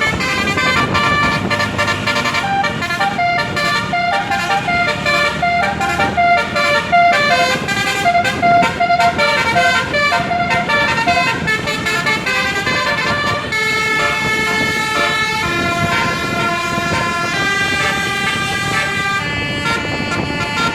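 Indonesian bus 'telolet' horn, a multi-trumpet basuri air horn, playing a tune: quick runs of changing notes, then slower, longer held notes from about 13 seconds in.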